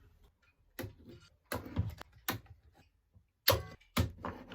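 Several short knocks and clunks of a glued-up wooden mallet head and workshop tools being handled on a bench, about six spread over four seconds.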